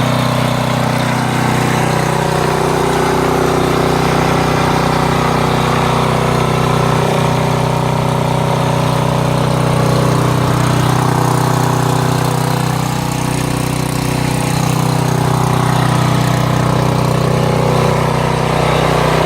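A 5,000-watt portable generator's engine running at a steady speed.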